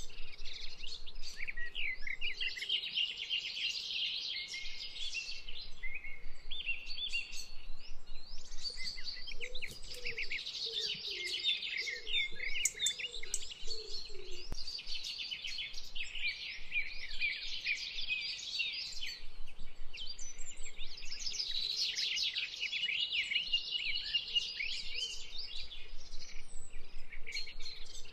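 Dense birdsong: many birds chirping and trilling at once, without a break.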